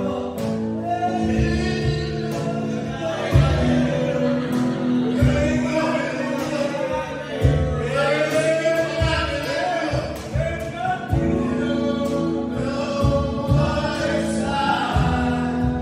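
A man singing a slow song into a microphone through a PA speaker, accompanied by live guitar.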